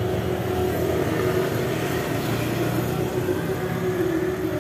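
Steady noise of a running vehicle engine.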